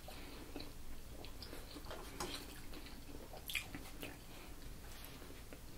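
Faint chewing and mouth sounds of two people eating rice and sausage, with scattered small clicks and one sharper click about three and a half seconds in.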